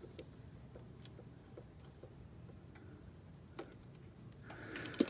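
Faint clicks and ticks of small spade connectors and wires being handled at the motorcycle's ignition coils, with a sharper click near the end. A steady high-pitched tone runs underneath.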